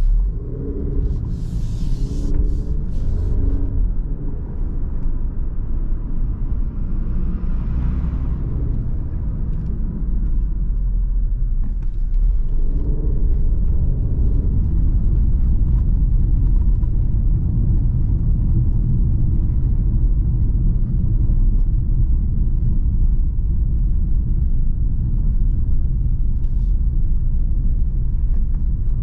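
Low rumble inside the cabin of a 2022 Alfa Romeo Giulia Veloce driving over cobblestones: its 2.0 turbocharged four-cylinder engine running, with tyre noise from the cobbles. It grows louder and steadier from about twelve seconds in.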